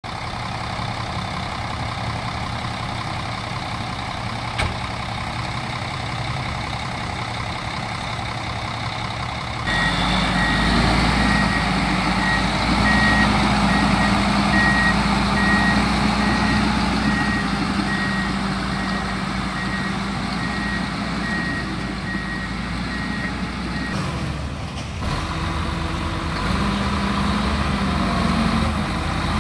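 Engine of a bagasse pusher, a heavy vehicle for shoving sugarcane bagasse, running steadily. About ten seconds in it grows louder and a reversing alarm starts beeping in a regular run at one pitch while the machine backs up. The beeping stops after about fourteen seconds and the engine keeps running.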